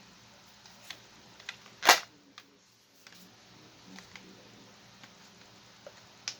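A spring-powered Nerf blaster, a tuned Rival Knockout converted to short darts, firing once about two seconds in: a single sharp crack. Small handling clicks come before and after it.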